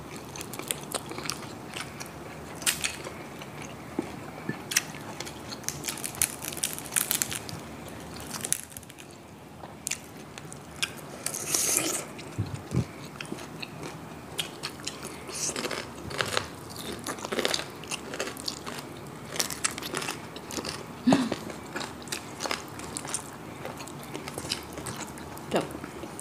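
Eating sounds of crispy pork knuckle: irregular, sharp crunches of the crackling skin being bitten and chewed, with softer chewing between.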